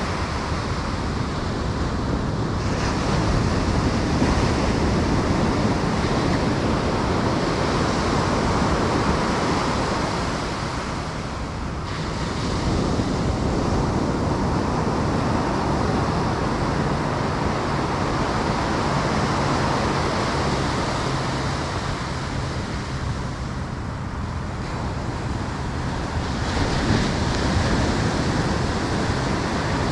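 Ocean surf breaking and washing up a sandy beach: a continuous rushing that swells and eases every several seconds.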